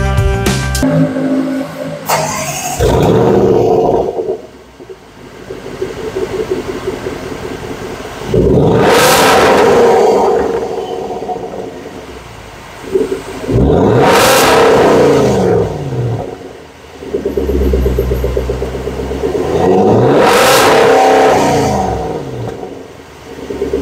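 Range Rover Sport's 5.0-litre supercharged V8 idling and being revved four times, the pitch rising and falling back with each blip. The first rev is short and the last three are longer and louder.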